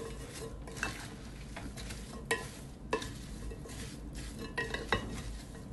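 Wooden spatula stirring radish strips coated in mustard oil and spices in a glass bowl, with a few light clicks along the way.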